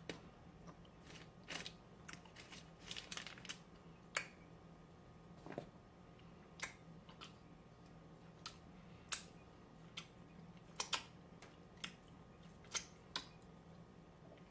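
Close-up eating sounds: scattered crisp crunches and moist mouth clicks of someone biting and chewing batter-fried seafood, irregular and faint, over a low steady hum.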